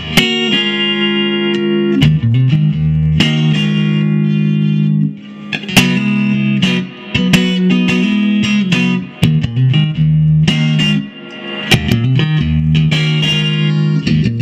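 1965 Fender Stratocaster electric guitar being played, with picked and strummed chords and single notes ringing out. There are short breaks between phrases.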